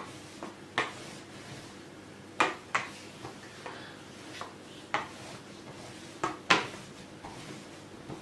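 Handled plastic rolling pin knocking and clacking against the table as laminated croissant dough is rolled out, with about six sharp knocks at irregular intervals.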